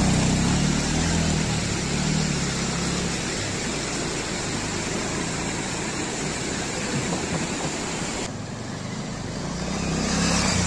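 Motorcycle engine running, strongest at the start and fading, over a steady rushing noise. The engine grows louder again near the end as a motorcycle comes closer.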